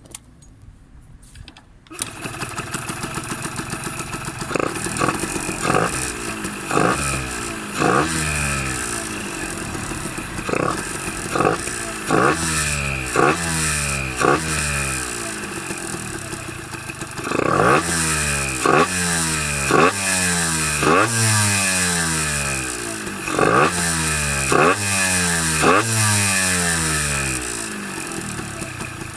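A Yamaha DT50's 50cc two-stroke single, with an RSV aftermarket silencer and an oversized Mikuni VM20 carburettor, starts about two seconds in. It is then revved in quick throttle blips, roughly one a second, each dropping back toward idle.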